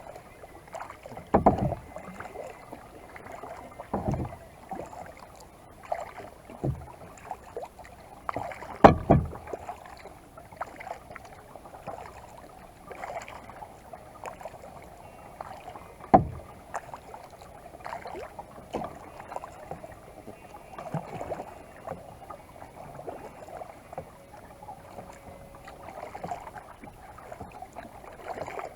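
Kayak paddling: irregular paddle strokes dipping and splashing in the water, with several louder thumps, the loudest about nine seconds in and again about sixteen seconds in.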